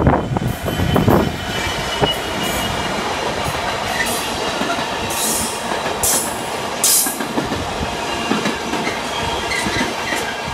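GBRf Class 66 diesel locomotive passing close by with a container freight train; it is loudest in the first second as the locomotive goes past. The container wagons then roll by with a steady rumble and clatter, with a few brief high wheel squeals in the middle.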